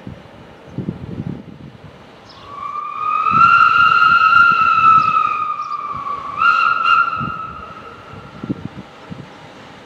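Steam locomotive whistle blown twice: a long blast that slides up in pitch as it opens and holds for about three and a half seconds, then a shorter blast that starts at full pitch and fades away.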